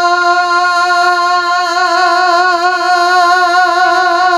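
A man's voice holding one long sung note of a naat, unaccompanied, with a steady wavering vibrato.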